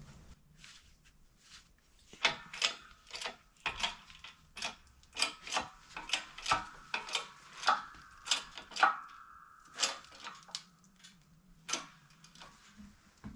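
Ball joint press being tightened with a ratchet to press a toe link bushing out of its arm: a string of sharp clicks, about two a second, with a creak from the press and bushing near the middle.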